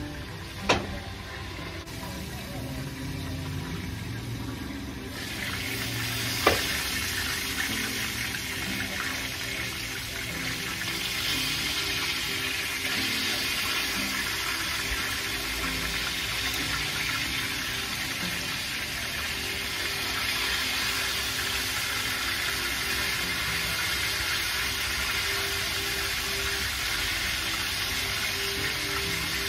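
Chicken frying in a cast iron skillet of hot grease: a steady sizzle that grows louder about five seconds in and then holds. Two sharp knocks stand out, one near the start and one about six seconds in.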